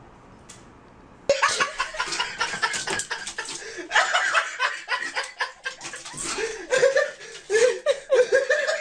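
People laughing hard in bursts, starting abruptly about a second in after a quiet stretch.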